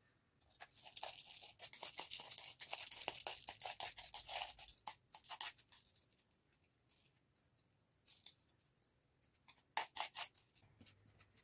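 Chopsticks scraping and scooping rice filling out of a bowl: a dense run of scratchy scrapes for about five seconds, then a few shorter scrapes near the end.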